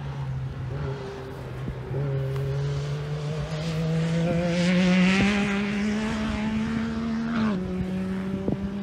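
Third-generation Toyota Tacoma's engine pulling the truck slowly up a steep, rutted dirt climb. The engine note rises gradually under load, then drops abruptly about three-quarters of the way through and holds steady. A few sharp clicks sound through it.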